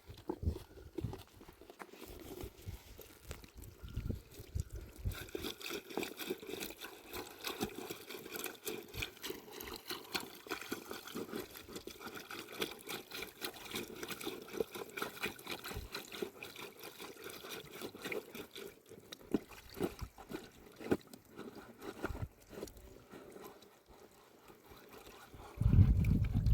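Water trickling and splashing, with many small irregular clicks and knocks. A loud low rumble comes in near the end.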